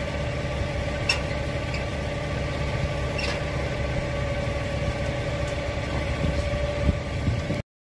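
Diesel engine on a Herzog steel rail train idling steadily, a low rumble with a steady hum, and two light clicks. It cuts off suddenly near the end.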